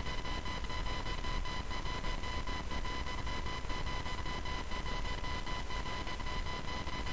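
Steady electrical whine and hiss: a high tone with overtones over constant hiss and a low hum, with faint regular clicking, typical of recording-equipment noise.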